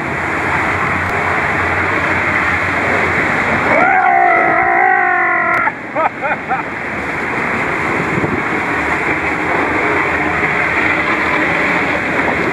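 Water rushing down an enclosed tube water slide under a sliding rider, a steady, muffled rushing noise. About four seconds in, a voice gives a held, wavering cry lasting nearly two seconds, followed by a couple of short cries.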